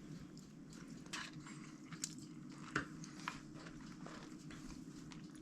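A person chewing a mouthful of pan-fried, skin-on panfish, with a few short soft clicks, over a low steady hum.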